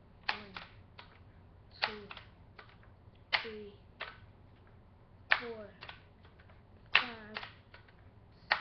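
Daisy Powerline 880S multi-pump pneumatic pellet rifle being pumped: six strokes of the forearm lever, about one every second and a half. Each is a sharp click followed by a brief sound that falls in pitch as air is forced into the gun.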